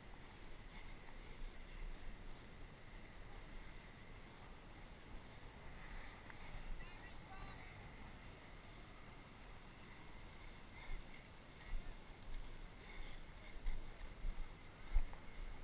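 Wind and handling noise on a body-worn camera microphone: a low rumbling rustle as the wearer moves, with a few sharper knocks in the last few seconds.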